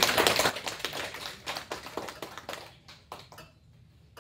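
A small group of children clapping, loud at first and dying away over about three seconds.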